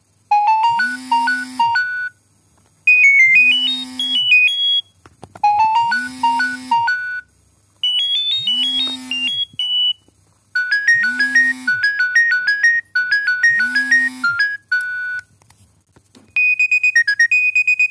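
Nokia 7210 ringtone playing: a short synthesised melody, several parts at once over a low held note that bends at each end, repeated about every two and a half seconds with brief gaps. Near the end a different ringtone begins, with a steadier high tone.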